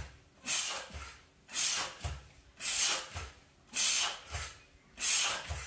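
A person breathing out hard in short hissing bursts, about one a second, in time with push-up repetitions.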